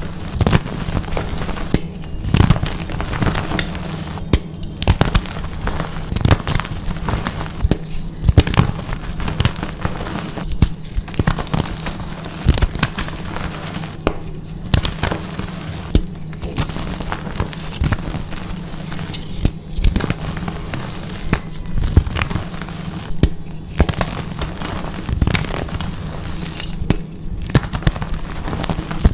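Blocks of dyed gym chalk being crushed, with dense crunching and crackling crumbles and brief pauses every few seconds.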